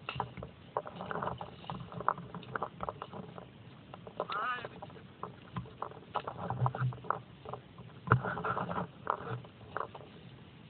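Someone pushing through dry leaf litter and undergrowth: irregular crunches and crackles of dry leaves and twigs underfoot, with stems and grass brushing past, the loudest crunch about eight seconds in.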